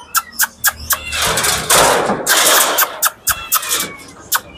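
Metal wire pet cage rattling and clattering as its door and latch are handled, with bursts of scraping in between.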